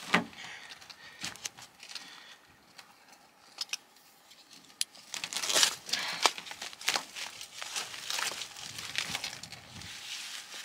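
Copy paper and duct tape being pulled apart by hand, an irregular crinkling and tearing. It is sparse at first and grows busier about halfway through.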